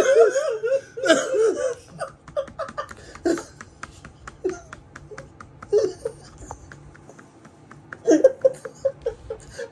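Two men laughing hard in fits: loud bursts of laughter in the first second or so and again near the end, with quieter, breathless pulses of laughter in between.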